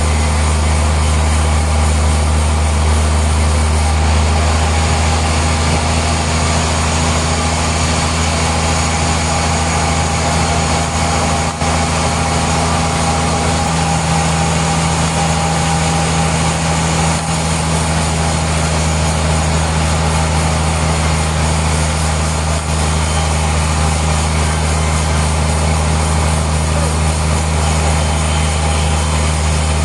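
Sawmill machinery running with a steady, even drone: a strong low hum and a few held tones over a dense mechanical noise, with no cut or stroke standing out.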